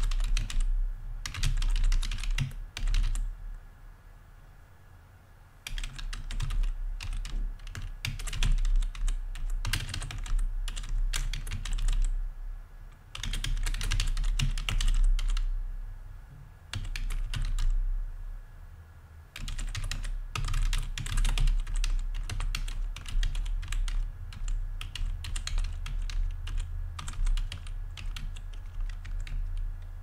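Typing on a computer keyboard: bursts of rapid key clicks broken by short pauses, the longest a few seconds in.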